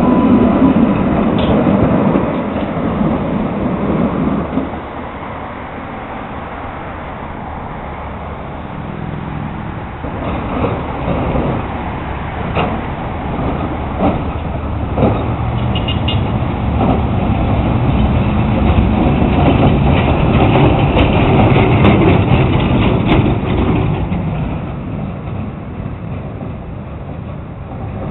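Streetcar running on rails: a red modern streetcar rumbles away and fades, then a vintage streetcar approaches, its wheels clicking sharply several times over the track as it grows louder, then quieter again near the end.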